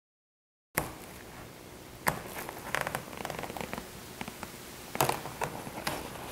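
Stitching thread of a car seat cover's seam snapping as the seam is unpicked by hand, heard as sharp irregular clicks and snaps over a faint hiss. It starts abruptly about a second in.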